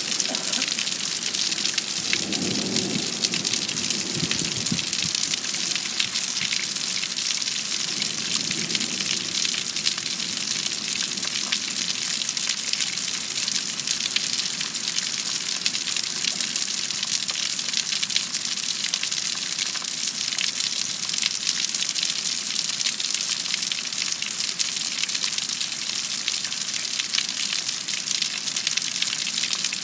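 Heavy rain pouring steadily during a thunderstorm, with a brief lower rumble in the first few seconds.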